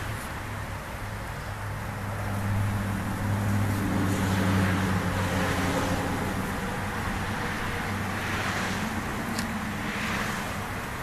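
Motor vehicle passing nearby: a low engine hum rises in the first few seconds, peaks about halfway, then fades, over steady outdoor traffic noise.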